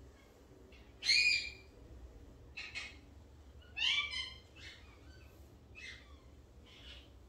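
A pet bird, a talker, giving a string of short high-pitched calls: a loud one about a second in, two more near three seconds, another loud one near four seconds, then several fainter ones.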